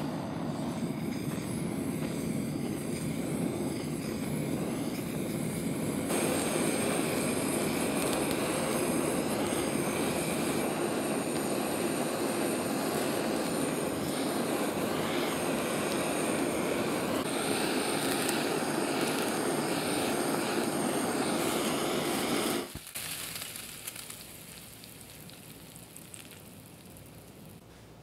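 Kitchen blowtorch flame running steadily as it caramelizes the sugar on top of a crème brûlée tart, lit with a sharp click just before. The flame cuts off suddenly about 23 seconds in.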